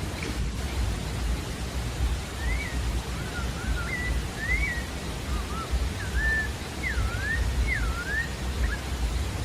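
A sabiá-da-várzea singing a phrase of quick whistled notes that slide up and down, some falling then rising in V-shapes, starting about two seconds in. Under it runs a steady low rumble and hiss.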